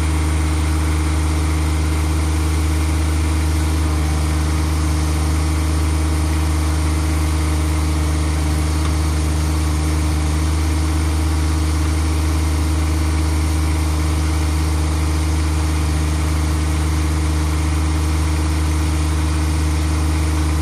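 John Deere 1026R compact tractor's three-cylinder diesel engine running at a steady, unchanging speed as it powers the backhoe's hydraulics.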